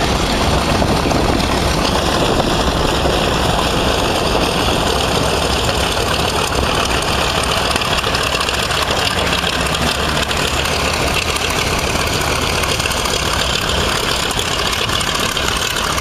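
Wright R-2600 radial engines of a B-25 Mitchell bomber running steadily as it taxis past at low power, a loud, even engine drone.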